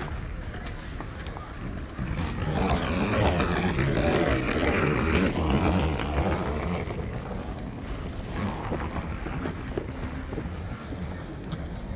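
Wind rumbling on the microphone outdoors, with a busier, louder stretch of indistinct sound from people walking past for a few seconds near the middle.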